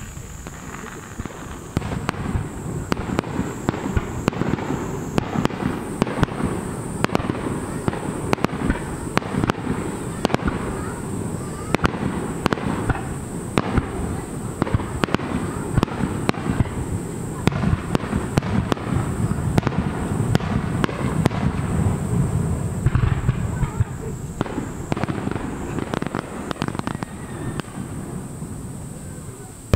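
Aerial fireworks shells bursting one after another: a rapid volley of sharp bangs over a low rumble, densest from about two seconds in and thinning out near the end.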